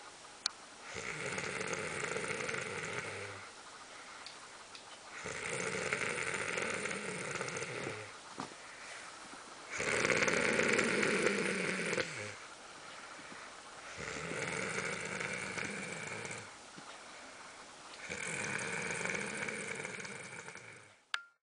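A sleeping person snoring in a slow, even rhythm: five long snores of about two seconds each, one every four seconds or so, with quieter breathing between them. It breaks off suddenly near the end.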